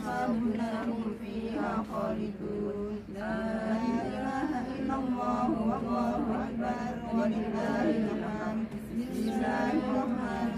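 A group of women reciting Arabic verses together in a chant, many voices overlapping with a steady held pitch beneath, without a break.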